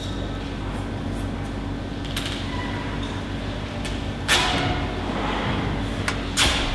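A handful of sharp knocks and clacks, the loudest a little past the middle, over a steady low hum.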